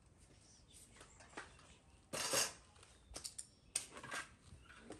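Dishes and cutlery being handled: a few scattered clinks and knocks, with a louder clatter about two seconds in.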